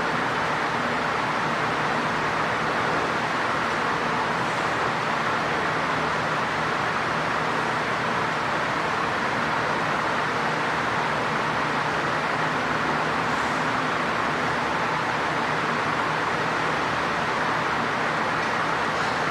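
Steady machinery noise in a workshop: an even hiss with a faint low hum, holding the same level throughout.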